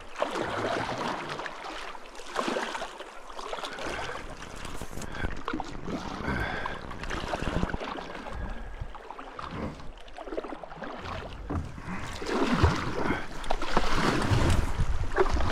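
Canoe paddle strokes dipping and pulling through a shallow, swift creek, with water rushing and splashing around the hull, getting louder in the last few seconds.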